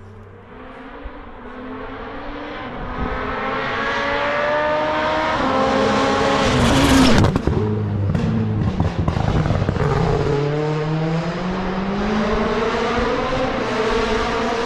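A rally car at full throttle, its engine climbing through the gears as it approaches. It is loudest as it passes close, about seven seconds in, then accelerates away with the engine pitch rising again.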